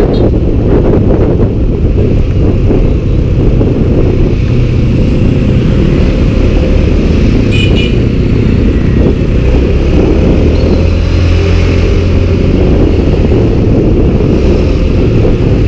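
Riding noise from a small motorcycle recorded on the camera's built-in microphone: a steady rush of wind over the engine running at cruising speed in traffic. A brief high chirp sounds about eight seconds in.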